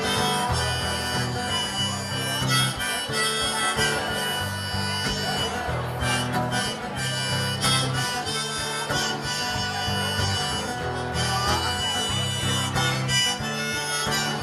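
Harmonica solo over acoustic guitar and a bass line, with no singing.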